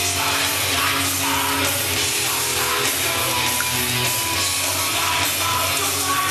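German heavy rock music playing, with electric guitars and a steady beat.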